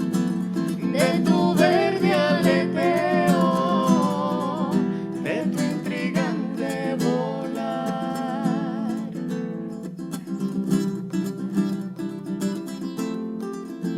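Live music: an acoustic guitar strummed steadily, with a singing voice carrying a wavering melody over it for the first two-thirds, after which the guitar goes on alone.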